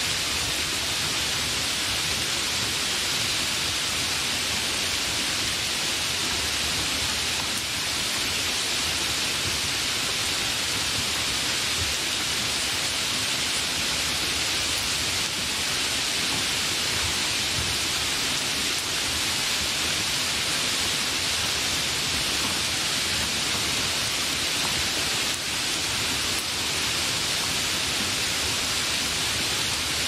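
Steady heavy rain falling: an even, unbroken hiss.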